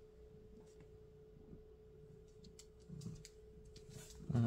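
Quiet room with a faint steady electrical whine, soft rustling and scattered faint clicks as a hand strokes a cat's fur; a short, louder low sound comes near the end.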